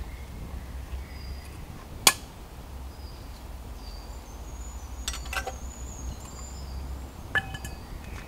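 Small metal camp cookware clinking as it is handled on the ground: one sharp loud clink about two seconds in, a few lighter clicks around five seconds, and a short ringing clink near the end. Faint short bird chirps in the background.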